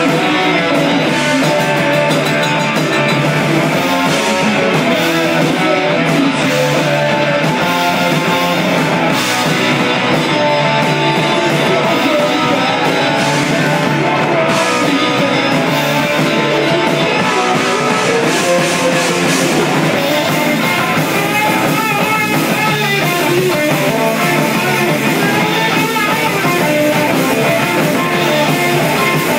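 Rock band playing live and loud: electric guitar, bass guitar and drum kit together, without a break.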